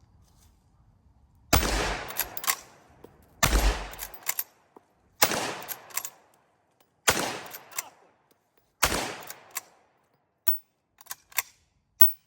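Henry lever-action rifle in .45 Long Colt fired five times, a shot about every two seconds, with quieter clicks between shots as the lever is worked. A few light clicks follow near the end.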